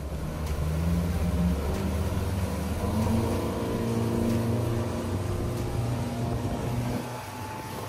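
Twin Yamaha 200 hp outboard motors running hard under throttle, their note climbing over the first few seconds as the catamaran speeds up, over the rush of water and wake. The engine sound falls away about seven seconds in.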